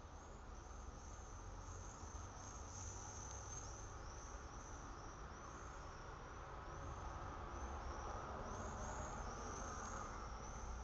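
Continuous high-pitched chirping, several chirps a second, over a low steady rumble.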